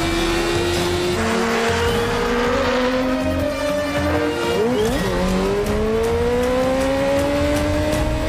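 Sport motorcycle engines running at high revs, with several engine notes layered. About five seconds in, one engine note sweeps up and then drops sharply as a bike passes; after that a single engine note climbs steadily as the bike accelerates.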